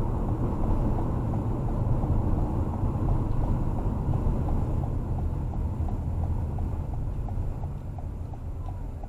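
Road and engine rumble inside a car's cabin, with the turn-signal indicator ticking steadily at about two to three ticks a second. The rumble eases off near the end.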